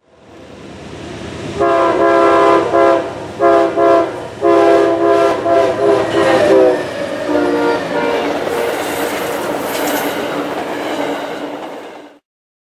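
Amtrak GE Genesis passenger locomotive blowing its multi-chime air horn in several blasts, long and short, at a grade crossing, the pitch dropping as it passes. Then the passenger cars rush by with wheel clatter until the sound cuts off abruptly near the end.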